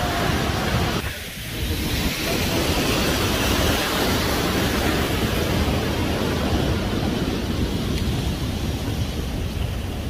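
Steady rushing noise of the Ouzoud waterfalls, with a brief dip about a second in.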